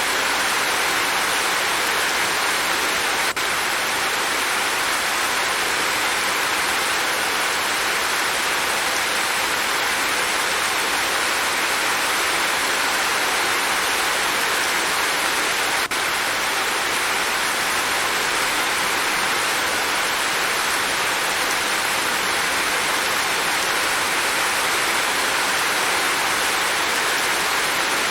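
Rain falling steadily, an even hiss with no change in strength. There are two faint clicks, one about three seconds in and one about sixteen seconds in.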